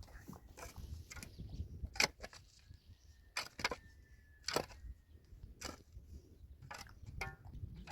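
Irregular sharp clicks and knocks, about seven spread over several seconds, over a low rumbling background, with a faint thin steady tone in the middle.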